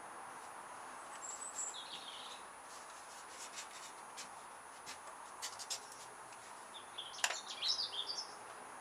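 Quiet garden air with small birds chirping a few times, once about two seconds in and again in a quick run near the end. A few light clicks, the sharpest about seven seconds in; the biplane's motors are not running.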